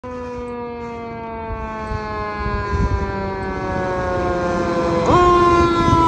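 Fire engine siren sounding a long, slowly falling wail that jumps sharply back up in pitch about five seconds in and starts falling again, over the truck's engine rumble. It grows louder as the engine approaches.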